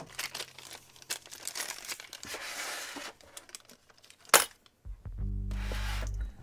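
Crinkling and rustling as satin scrunchies are picked out of a plastic basket by hand, then one sharp click a little after four seconds, over background music.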